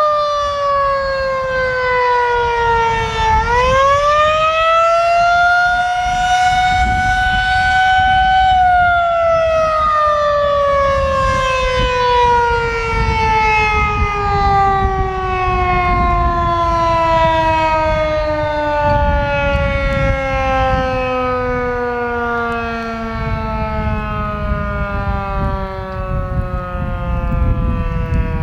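Federal Signal 2001-SRNB rotating outdoor warning siren sounding its Attack wail. The pitch falls, climbs again over about five seconds, then sinks slowly and steadily for the rest as the siren winds down, with a low rumble of wind on the microphone underneath.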